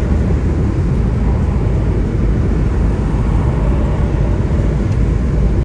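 2001 Saturn L-series driving at freeway speed, heard from inside the cabin: steady engine, road and wind noise.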